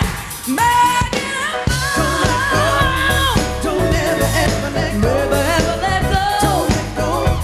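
A woman singing a pop/R&B song with a live band. She holds long notes with a wavering vibrato over bass and drums.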